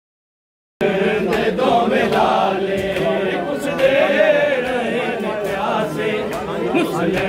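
A group of men's voices chanting together in a crowd, cutting in abruptly after a moment of dead silence.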